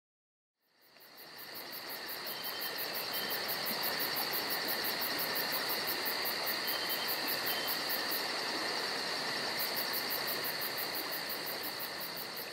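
A steady insect chorus, like crickets: a continuous high buzz with a fast, evenly pulsing trill above it. It fades in from silence just under a second in.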